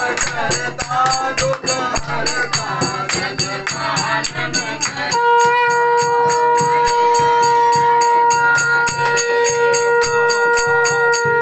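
Aarti hymn sung by a group over a quick steady beat of hand-clapping and metallic rattling. About halfway through, a conch shell starts one long, steady held note.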